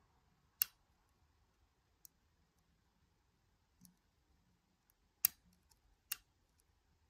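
Lock picking in a Nemef NF2 cylinder lock: small sharp metallic clicks from the pick and pins, a loud one about half a second in, fainter ticks between, and two more loud ones near the end.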